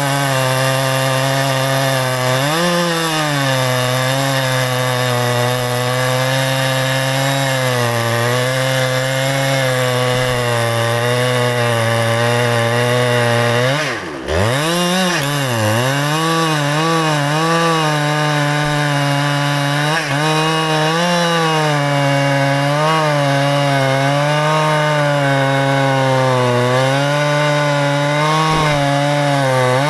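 Two-stroke chainsaw running hard while cutting into the wood of a large rain tree, its engine pitch wavering as the chain loads up. About halfway through it dips sharply for a moment, then picks back up to cutting speed.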